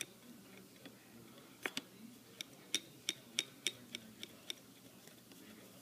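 Hand grease gun being pumped, its mechanism giving about ten sharp clicks at roughly three a second over about three seconds, as the new gun is worked to push grease through.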